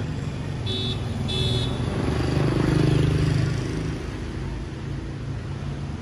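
Street traffic: a vehicle horn gives two short high beeps, then a motor vehicle's engine passes by, rising to its loudest about three seconds in and fading away.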